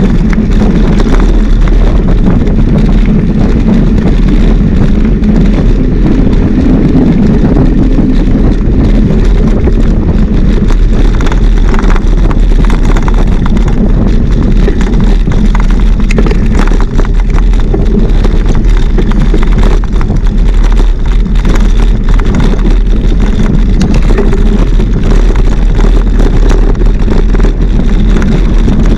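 Steady wind roar buffeting the microphone of a camera on a moving mountain bike, with scattered small rattles and clicks.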